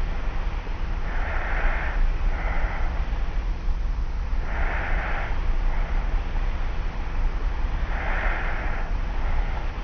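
A sleeping person lying on their back, breathing with slight snores, three breaths about three seconds apart. A steady low hum runs underneath from the old tape recording.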